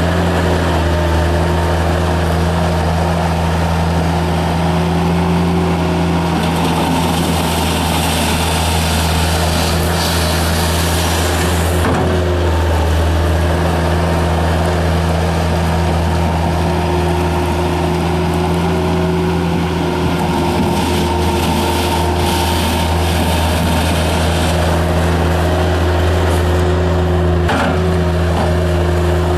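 Bobcat 753 skid steer loader's Kubota diesel engine running steadily at a constant speed, with two brief knocks, one about halfway through and one near the end.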